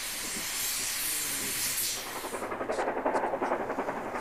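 Steam hissing steadily from QJ (Qianjin) steam locomotives standing in steam. About two seconds in it gives way to the fast, even exhaust beats of a steam locomotive working a train, about ten beats a second.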